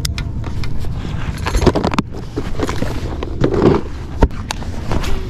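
Handling noise as a plastic tackle box of skirted bass jigs is picked through: irregular plastic clicks, rattles and knocks with rustling, and a sharp knock about four seconds in.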